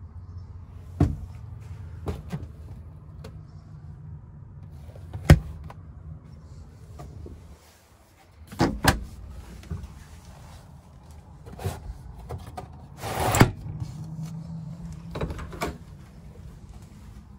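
Camper refrigerator and cabinet doors being opened and shut by hand: a string of knocks and latch clicks, the loudest about five seconds in, with a brief rush of noise past the thirteen-second mark, over a low steady hum.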